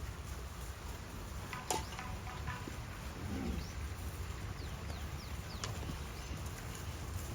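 A steady low rumble with a sharp click about two seconds in, then a few brief, high, falling bird chirps past the middle.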